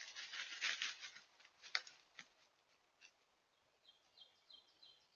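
Coyote footsteps in dry leaf litter: a quick run of crackles in the first second, then a few single snaps. Near the end a bird sings a short series of repeated high notes.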